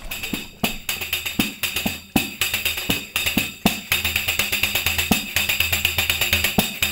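Galician pandeireta (frame drum with metal jingles) played in a steady rhythm, hand strikes on the skin with the jingles rattling between them: a pandeiretada from Muxía.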